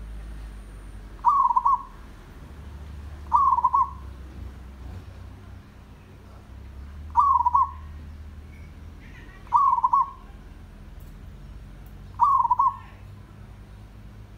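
Zebra dove cooing: five short, quavering coos, each about half a second long, repeated every two to four seconds.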